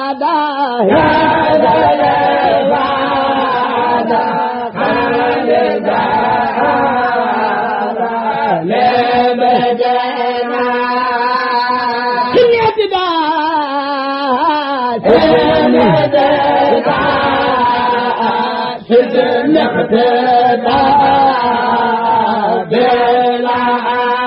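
Vocal chanting of a Mouride khassida, an Arabic devotional poem, in long melismatic lines whose pitch glides and bends, broken only by short pauses for breath. No instruments are heard.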